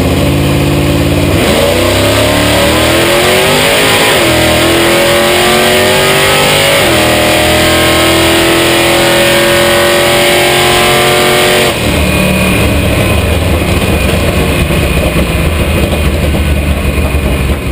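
A vintage Chevrolet drag car's engine, heard from inside the cab through a full quarter-mile pass. It holds a steady note on the line, then launches about a second and a half in with the revs climbing. The pitch drops at gear changes at about four and about seven seconds, and the engine keeps pulling until the throttle is lifted about twelve seconds in. After that it runs lower and rougher as the car coasts down.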